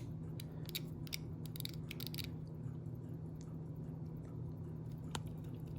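Faint small metallic clicks from a Waltham pocket watch being handled, a scatter of them in the first two seconds and one more near the end, over a low steady hum. The watch isn't running; its owner takes it to be gummed up.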